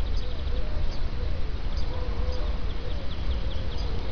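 Outdoor field ambience: a steady low rumble on the microphone, a faint buzzing insect whose pitch wavers, and faint high chirps in a loose series over the second half.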